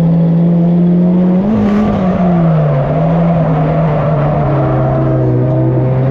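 Turbocharged KA24 four-cylinder engine of a Nissan 240SX drift car running hard at high, fairly steady revs. The pitch rises briefly and then dips about two seconds in.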